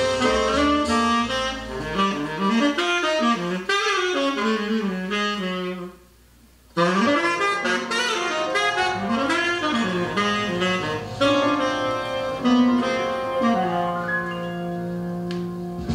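Jazz with a saxophone lead, played from a record through a JBL SA600 solid-state amplifier's phono input. There is a short break in the music about six seconds in.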